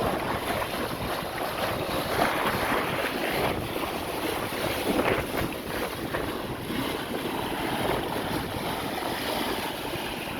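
Water rushing and splashing along the hull of a sailing yacht making about 6.5 knots under full sail, rising and falling in uneven surges, with wind buffeting the microphone.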